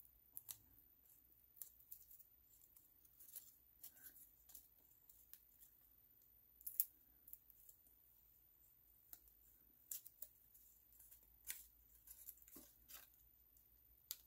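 Small craft scissors snipping thin foam tape into short strips: faint, irregular snips and clicks, one sharper click about seven seconds in.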